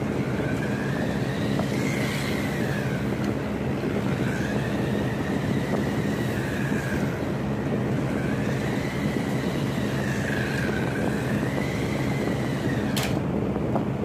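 Remote-control car's electric motor whining as it drives around a smooth floor, the whine rising and falling in slow swells with the throttle, over a steady low hum. A single sharp click near the end.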